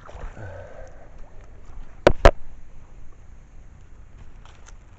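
Two sharp knocks about a fifth of a second apart, about two seconds in, over faint outdoor background noise.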